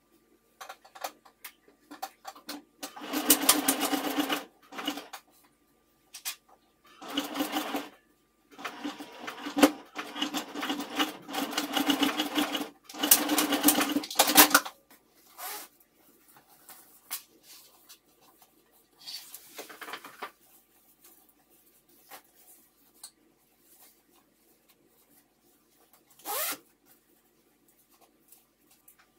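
Electric sewing machine stitching in three runs, starting and stopping: a short run about three seconds in, another around seven seconds, and a longer one from about nine to fourteen and a half seconds. After that, a few soft clicks and two short swishes.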